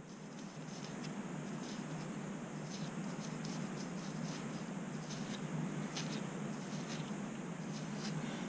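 A fine-tooth comb scraping against the scalp at the hairline, lifting flakes of seborrheic dermatitis scale, in short irregular scratching strokes, a couple a second. A steady low hum runs underneath.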